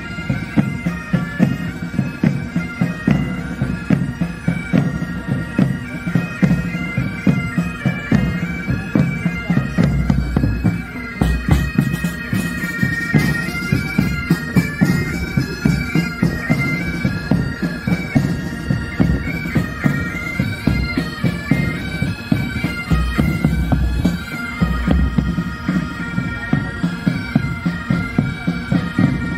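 Pipe band playing a tune: massed Highland bagpipes sound a stepping melody over their steady drones, with drums keeping a regular beat.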